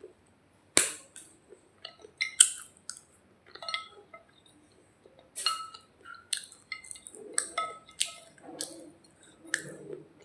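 Hard dried clay being bitten and chewed close to the microphone: a series of sharp, crisp cracks, the loudest about a second in and again at about two and a half seconds, followed by softer, duller chewing near the end.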